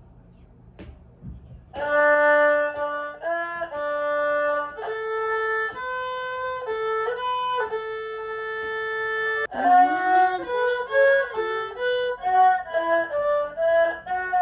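An erhu, the two-stringed Chinese bowed fiddle, played by a learner. After a couple of seconds of quiet it starts a slow melody of long held bowed notes, then moves into quicker, shorter notes with slides between pitches from about ten seconds in.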